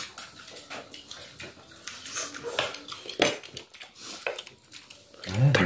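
Spoons and cutlery clinking and scraping on plates and steel bowls during a meal, as scattered light clicks with one sharper clink about three seconds in. Near the end comes a short, loud, pitched cry that rises and falls in pitch.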